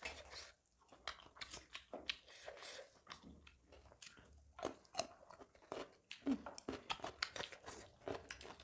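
Two people chewing and biting food, picked up close by clip-on microphones: crunchy bites and wet mouth sounds come as short, irregular clicks, with fingers mixing kodo millet dhido and chicken curry on metal plates.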